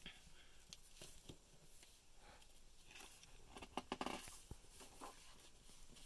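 Faint rustles and clicks of a hardcover picture book being handled and its pages turned, with a louder cluster of rustling about four seconds in.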